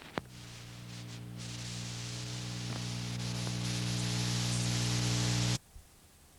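Steady electrical hum with hiss, slowly growing louder, after a single click near the start; it cuts off abruptly about five and a half seconds in.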